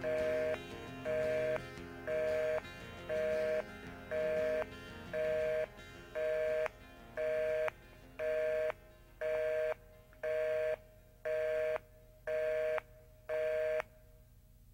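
Telephone busy signal: a two-note beep, half a second on and half a second off, repeating about once a second over the last of the song's backing music as it fades. The beeps stop shortly before the end.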